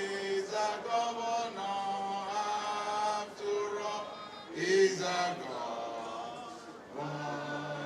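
A man singing a slow, chant-like tune with long held notes.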